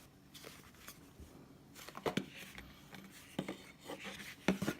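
A Zippo lighter and its presentation box being handled: a few light clicks and taps scattered through, with faint rustling.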